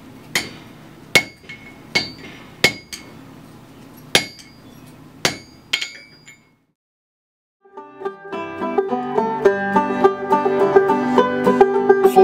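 Hammer blows ringing on an anvil, about eight strikes at uneven intervals. A second of silence follows, then banjo music starts about eight seconds in.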